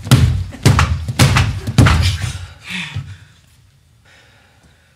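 Several heavy thuds and knocks in the first two seconds, then quiet.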